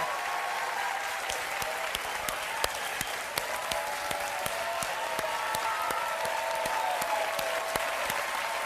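Audience applauding at the end of a live recording of a song, a dense steady clapping with faint voices calling out from the crowd.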